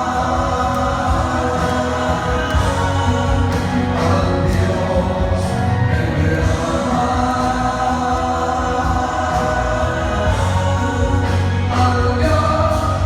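Gospel music: voices singing together over a steady band accompaniment with a strong bass.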